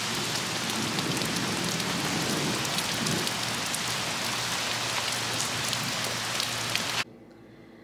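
Heavy rain falling steadily on a paved patio and lawn: a dense, even hiss that cuts off suddenly near the end.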